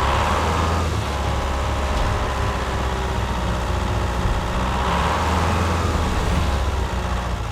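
A heavy vehicle engine running steadily, with a deep continuous hum and a droning tone above it.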